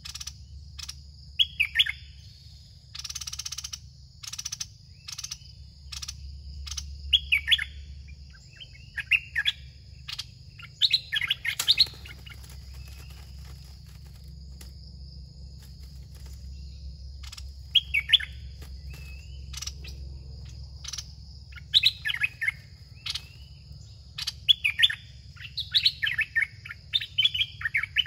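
Red-whiskered bulbuls calling in short phrases of quick falling notes, repeated every few seconds around a caged decoy bird, over a steady high-pitched drone.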